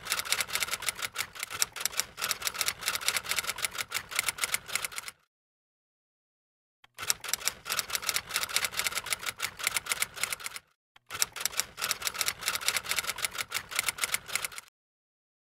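Typewriter sound effect: rapid key clacks in three runs, breaking off for about two seconds around the middle and again briefly near the end.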